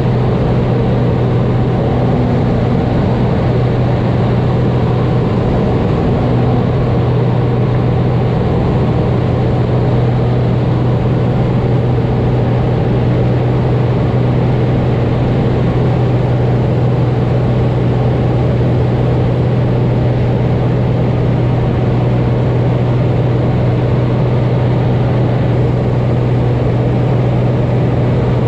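Light propeller aircraft's engine and propeller in cruise, heard inside the cabin: a loud, steady drone with a constant low hum that never changes.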